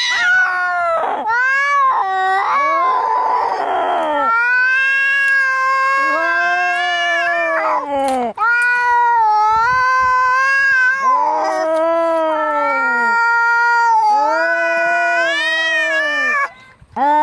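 Angry cats caterwauling: a run of long, drawn-out yowls that rise and fall in pitch, with a hiss about three seconds in, the sounds of a cat fight.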